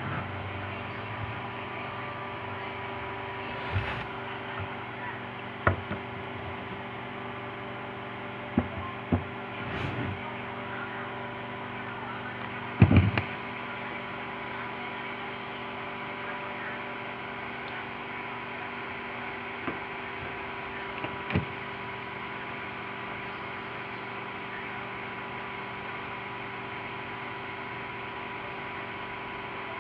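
Steady electrical hum made of several constant tones, broken by a handful of short knocks and clicks, the loudest about 13 seconds in.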